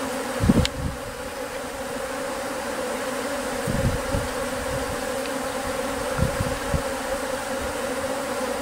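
A swarm of Japanese honeybees buzzing steadily as it clusters on a lure orchid and crawls into a bait hive. A few short low thumps come through about half a second in and again near the middle.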